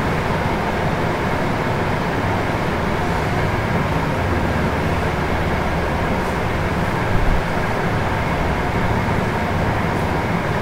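Steady low rumbling background noise, with a brief thump about seven seconds in.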